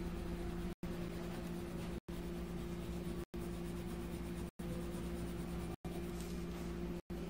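Steady low hum with an even hiss, cut by brief silent gaps about every second and a quarter.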